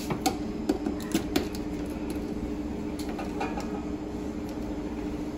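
Power plug of a Ronco Vertical Grill House electric grill pushed into a wall socket and the grill handled, giving a few light clicks and knocks in the first second and a half, with fainter ones later. A steady low hum runs underneath.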